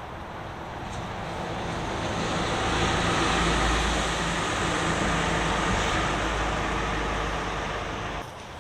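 A motor vehicle passing by: a steady, noisy rumble that swells up, holds, and drops away abruptly near the end.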